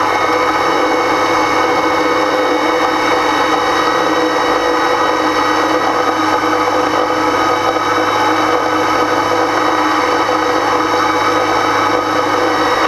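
Electric vehicle winch running steadily as it reels in its line: a continuous motor whine over a low hum.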